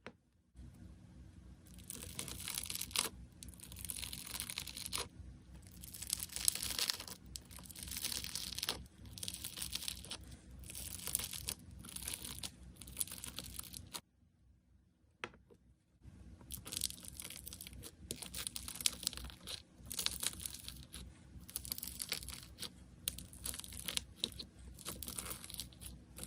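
Slime being squeezed and stretched by hand, giving crackling, crinkly sounds in uneven bursts, with a short break about 14 seconds in before a second stretch of the same crackling.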